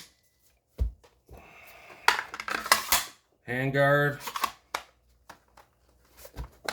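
Parts of a Hunt Group HS12 semi-auto 12-gauge shotgun being handled during reassembly: sharp clicks, a faint scrape and a cluster of rattling clicks as the handguard is fitted, then lighter clicks.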